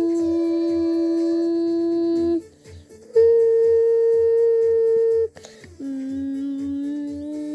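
Music: long held, reed-like humming notes over a steady low beat, breaking off briefly twice and changing pitch with each new note.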